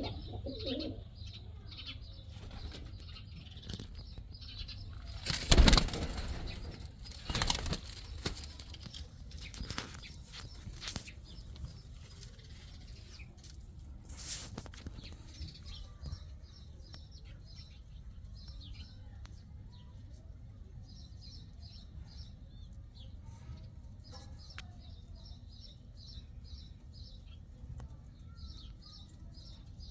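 Pigeons' wings flapping in several loud bursts in the first half, the loudest about five seconds in. Later come rows of quick high bird chirps.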